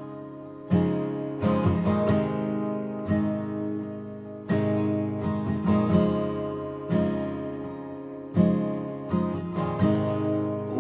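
Acoustic guitar strumming chords, each struck sharply and left to ring and fade before the next: an instrumental intro with no voice yet.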